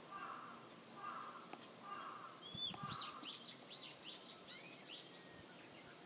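Distant birds: a crow caws harshly about once a second, and about two and a half seconds in a songbird sings a quick run of clear whistled notes that rise and fall, lasting about two and a half seconds.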